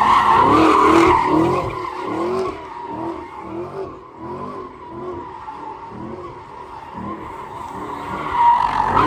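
Car tires squealing in a steady high screech while the engine revs up and down in short repeated pulls, about twice a second. The sound is loud at first, eases in the middle and swells again near the end.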